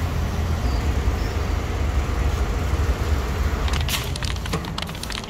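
Low, uneven rumble of city street traffic that eases off near the end. About four seconds in comes a short run of clicks and knocks as a wooden-framed glass door is pushed open.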